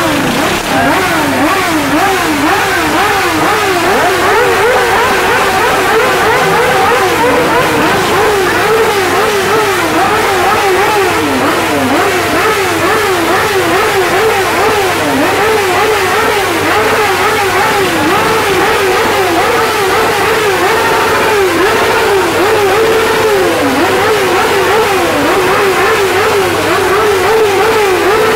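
Several motorcycle engines revved over and over, their pitch sweeping up and down again and again in overlapping throttle blips over a steady idle.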